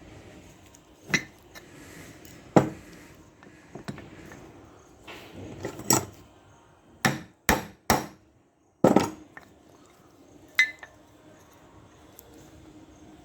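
Hammer tapping a part into place in a scooter's front wheel hub during bearing replacement: about nine sharp, irregular metal knocks, three of them in quick succession a little past the middle.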